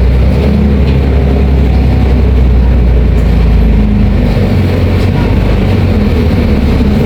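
Diesel engine of a Volvo B340M city bus running under way, a loud steady drone; its note shifts about four and a half seconds in as the engine speed changes.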